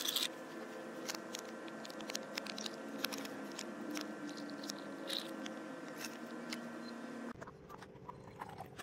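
Ice cubes clinking and tapping in a drinking glass, a scatter of small clicks over a steady low hum.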